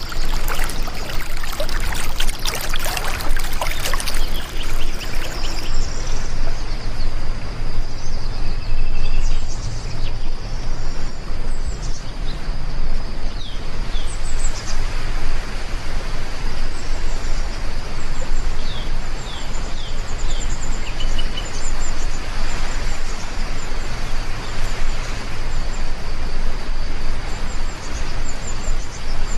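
Steady rain, with dense dripping and splashing for the first few seconds, then birds chirping over the rain.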